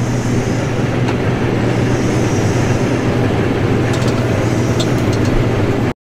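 Case IH Axial-Flow 7088 combine harvester running, heard from inside its cab: a loud, steady low hum of engine and machinery. It cuts off suddenly at the very end.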